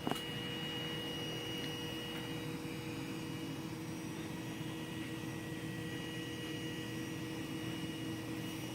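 Steady whir and hum of an A8 3D printer's cooling fans, still running after a print has finished, with a brief click right at the start.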